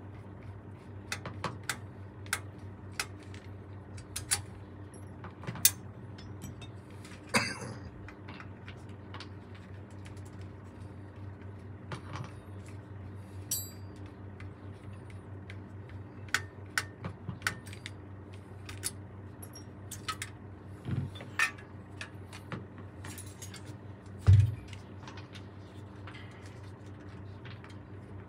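Scattered small metal clicks and taps of tools and saxophone parts being handled during repair work, with one louder knock near the end, over a steady low hum.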